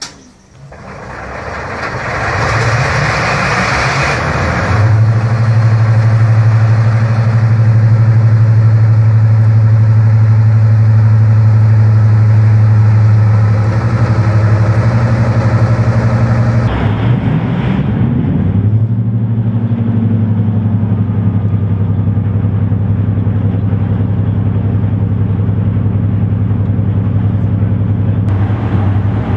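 Napier Deltic two-stroke opposed-piston diesel engines of a British Rail Class 55 Deltic locomotive running. A rising rush of noise over the first few seconds settles into a steady, deep, even drone. About two-thirds through there is a brief swell in pitch, and the sound changes abruptly.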